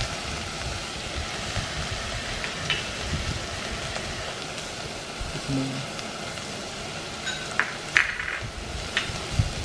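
Kroeung paste of lemongrass, galangal and turmeric sizzling steadily as it fries in oil in a metal pot. A few sharp clicks come near the end.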